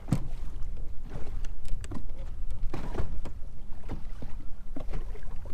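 Small waves slapping and knocking against a plastic kayak hull at irregular intervals, over a steady low rumble of wind buffeting the microphone.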